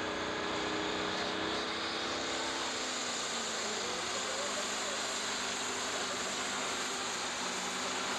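Pro stock pulling tractor's turbocharged diesel engine running hard under full load as it drags the weight-transfer sled down the track. It makes a loud, steady drone whose pitch shifts about two and a half seconds in as the pull gets under way.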